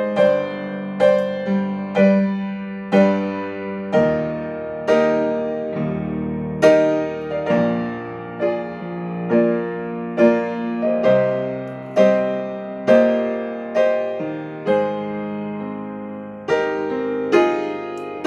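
Piano played slowly, a note or chord struck about once a second, each ringing and fading before the next.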